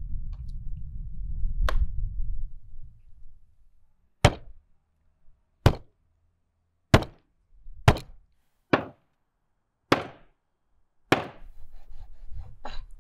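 Meat cleaver chopping through a sturgeon head on a wooden cutting board: about nine sharp chops, a second or so apart. A low rumble sits under the first few seconds and returns near the end.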